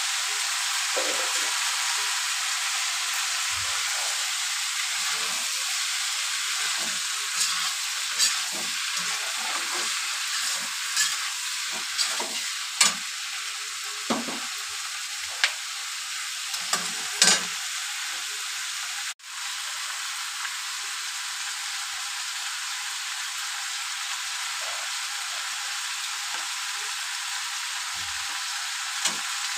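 Green beans, potato cubes and onion frying in oil in a steel kadhai, a steady sizzle, with a metal spatula stirring and knocking against the pan in short sharp clatters through the middle. The sizzle cuts out for an instant about two-thirds in.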